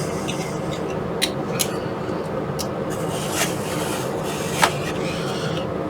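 Items being handled and pulled from a packed mystery box: scattered light rubs, scrapes and a few sharp clicks of packaging, over a steady background hum.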